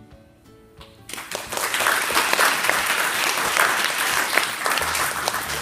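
Soft music with held notes, then about a second in an audience breaks into loud, sustained applause.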